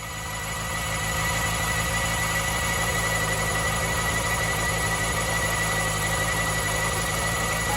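Honda Hornet 250's inline-four engine running at a steady idle, with a steady whine over it: abnormal noise from the water pump, which is also leaking and which the owner fears is finished.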